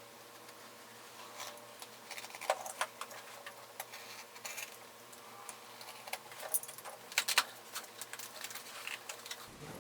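Packaging being handled as a shipping box is opened: irregular crinkling, rustling and sharp clicks of cardboard, plastic and foam packing, with louder clusters about two and a half seconds in and around six to seven and a half seconds in.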